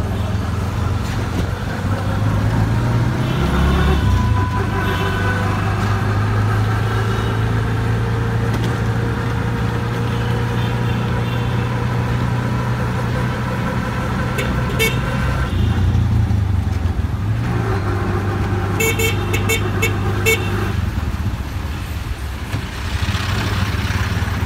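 Auto-rickshaw (tuk tuk) engine running steadily as it drives through traffic, with vehicle horns honking at times.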